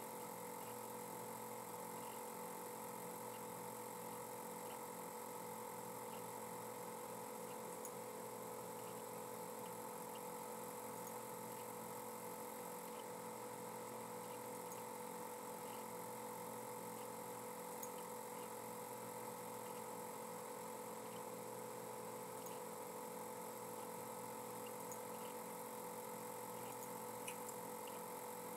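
Steady electronic hum and hiss with several fixed pitches, with faint, scattered soft ticks.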